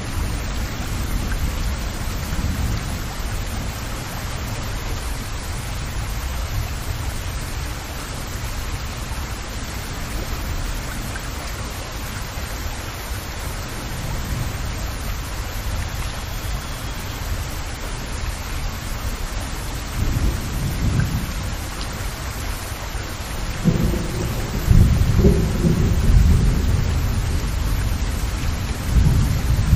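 Heavy rain falling onto a broad water surface, a dense, even hiss of countless drops. Low rumbles swell up under it several times in the second half.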